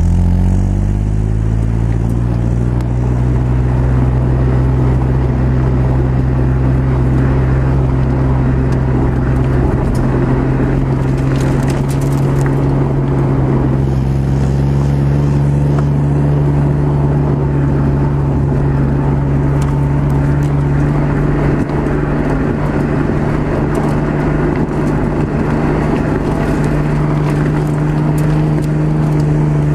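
Stock exhaust of an Audi A4 3.0 V6, picked up right above the driver's-side tailpipe while the car drives: a steady drone whose pitch climbs slowly as the revs build, rising faster near the end.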